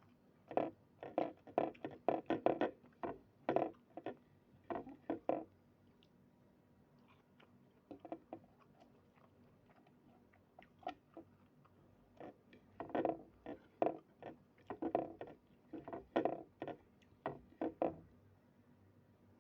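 A person chewing and eating close to the microphone: irregular short mouth and chewing noises with some scraping, in two busy spells with a quieter pause in the middle.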